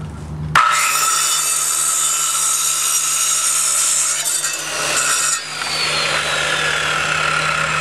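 DeWalt corded circular saw starting up about half a second in and crosscutting a 2x2 pallet-wood post to length. After about five seconds the cut ends, and the blade whine falls steadily in pitch as the saw winds down.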